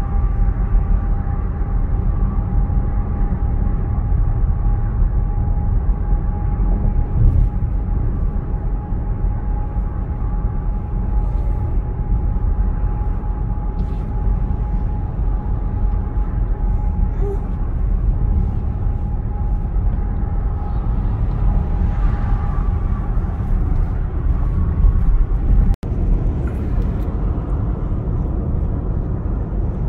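Steady low road and tyre rumble inside a Genesis GV70's cabin cruising at highway speed, with a faint steady whine over it that fades out about three-quarters of the way through. The sound cuts out for an instant near the end.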